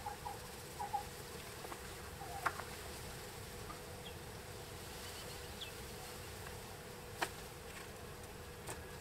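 A low, steady buzzing hum, with a few soft clicks and taps from a lead-test swab, card and swab tube being handled.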